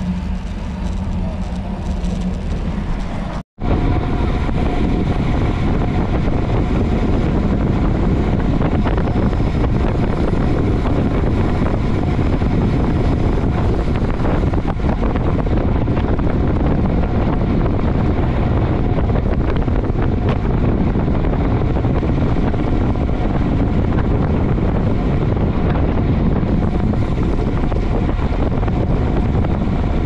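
Steady wind noise buffeting the microphone of a camera moving with a bicycle at speed. The sound cuts out for a split second about three and a half seconds in, then comes back a little louder.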